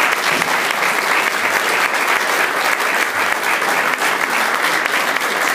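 Audience applauding steadily: many hands clapping at once in a full hall.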